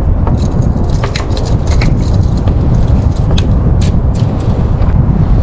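Wind buffeting the microphone: a loud, steady, low rumble with no pitch, with scattered short clicks and ticks over it.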